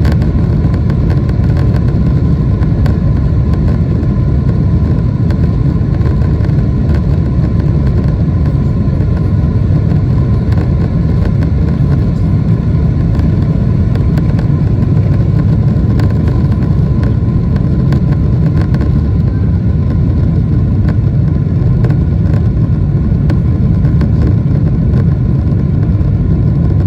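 Steady, loud, low rumble inside the cabin of a Boeing 777-300ER, from its GE90-115B engines and the rushing air, with a faint steady hum above it.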